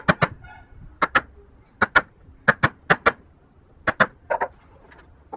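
Wood chisel driven into a hardwood block by mallet blows, chopping out the slot of a bridle joint. There are about a dozen sharp strikes, mostly in quick pairs about a second apart.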